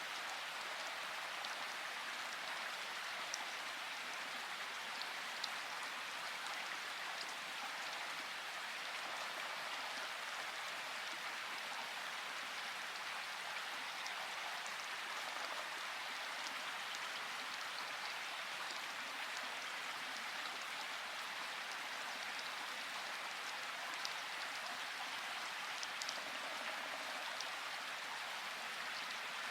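Steady rain falling, an even hiss with occasional distinct drop ticks.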